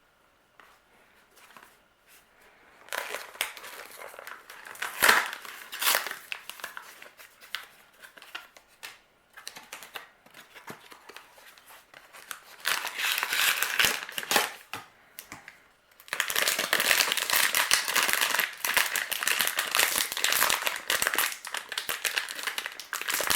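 Opening a small cardboard toy mystery box and handling the plastic blind bag inside: irregular rustling, tearing and sharp clicks, turning into steady, louder crinkling for the last several seconds.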